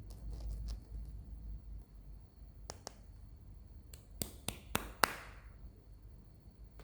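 Hands handling a toy and its packaging close to the microphone: soft handling rumble at first, then a few sharp clicks and taps. Two come near the middle and a quick run of four follows, the last the loudest.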